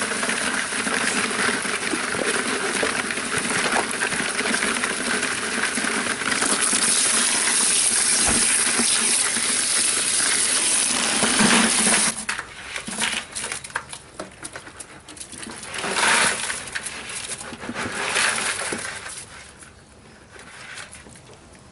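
Stream of water spraying and splashing onto a mass of live crayfish in a plastic cooler, steady until it cuts off about twelve seconds in. After that, irregular clicking and clattering of the crayfish shells against each other and the cooler, fading toward the end.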